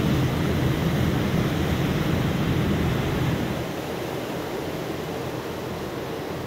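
Steady rush of wind and water noise on the open deck of a moving river cruise boat, with a low rumble that eases about three and a half seconds in.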